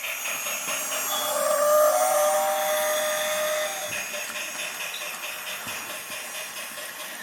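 Toy steam locomotive running on its track with a fast, even chuffing rhythm, and a held tone of several pitches over it from about one to four seconds in.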